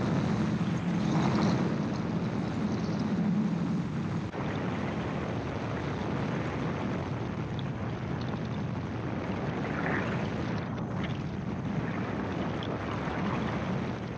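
Gyroplane engine and pusher propeller running at high power during a go-around climb. The engine note eases slightly about four seconds in.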